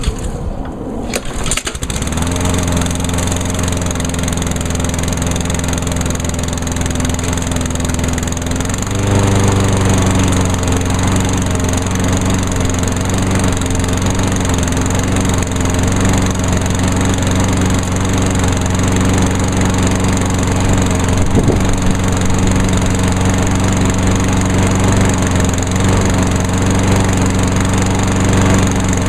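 Honda GCV160 overhead-cam engine on a 2003 Craftsman push mower, started on choke: it catches about two seconds in and settles into a steady run. About nine seconds in its note shifts and grows louder, then holds steady.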